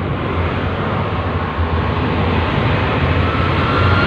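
Steady road and engine rumble inside a moving car's cabin, slowly growing louder, with a faint steady tone joining near the end.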